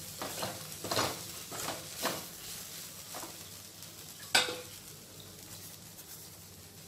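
Moringa leaves being stirred with peanut powder in a frying pan: a utensil scraping and clinking against the pan in irregular strokes, the sharpest knock about four seconds in, over a faint sizzle, the stirring dying down in the last couple of seconds.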